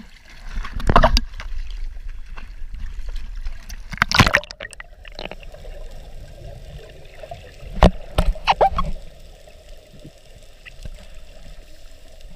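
Sea water sloshing and gurgling around an action camera in its waterproof housing as it passes from the surface to underwater, with a few louder splashy bursts about one, four and eight seconds in.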